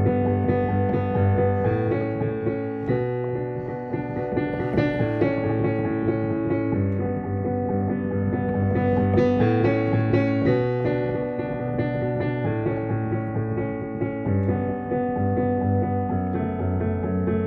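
Piano played with both hands: a continuous flowing passage of many notes over a steady bass line, with no pauses.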